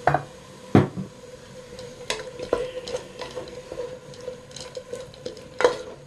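A cooking utensil stirring and scraping beef and taro stems in a pot, with about five sharp clacks against the pot's side.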